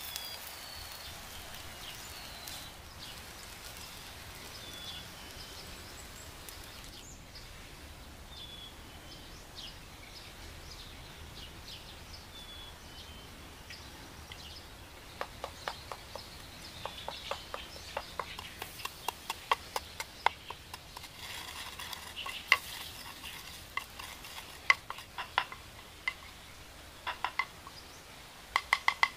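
A stick or pestle stirring and knocking in a small bowl: irregular runs of sharp clicks with a brief ring, starting about halfway in. Before that, only a steady low hiss with birds chirping now and then.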